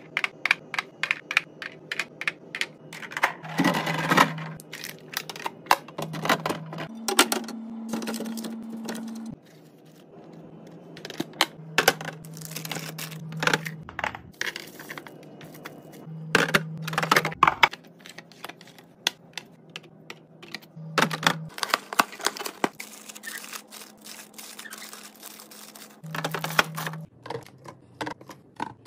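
Rapid clicking, tapping and clattering of plastic containers, lids and jars being handled and set down while a fridge is restocked, with a low hum that comes and goes.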